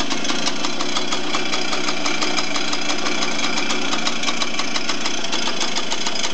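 Suzuki RV90's small two-stroke single-cylinder engine idling steadily, its firing pulses even and unchanging.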